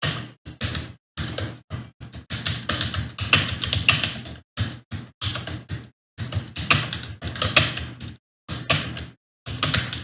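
Fast typing on a computer keyboard during a timed typing test: rapid runs of keystroke clicks broken by short pauses.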